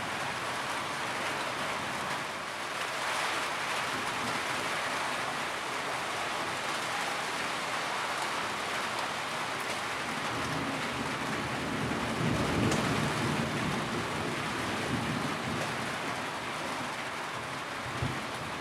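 Steady heavy rain falling, with a low thunder rumble swelling about two-thirds of the way in and a brief low thud near the end.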